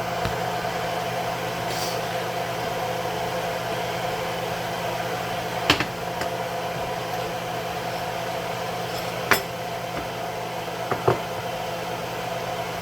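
Steady hum of a kitchen stove's vent fan, with a handful of sharp taps, about four, scattered through it.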